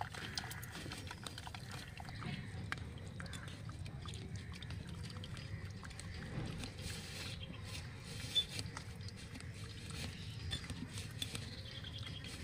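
A metal spatula pressing boiled taro stems against a plastic colander, squeezing the cooking water out with soft squelching, dripping and scattered small clicks of metal on plastic.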